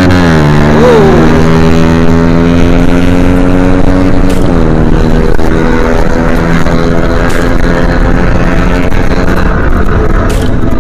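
Motorcycle engine running under way. Its note falls over the first second or so, then holds steady, with a brief dip and recovery about four and a half seconds in, as in a gear change.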